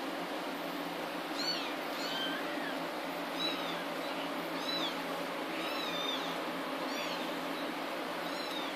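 Very young kittens, 18 days old, mewing: about eight short, high-pitched squeaky mews that rise and fall in pitch, coming every second or so, over a steady background hiss.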